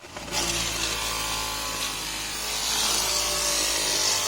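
Maruti Alto LXI's AC blower fan switched on and running with a loud, rough rushing noise over a steady motor hum. The noise comes from paper scraps and leaves that a rat packed into the blower housing.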